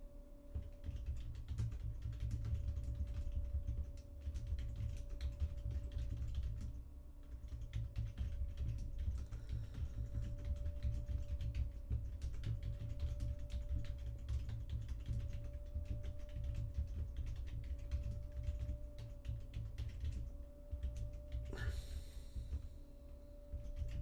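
Typing on a computer keyboard: a fast, irregular run of key clicks with dull thumps through the desk, writing a comment, with short pauses about seven seconds in and again near the end. A faint steady hum runs underneath.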